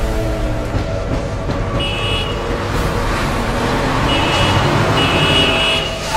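A car approaching with its engine and road noise growing louder, sounding its horn three times: two short blasts and then a longer one near the end.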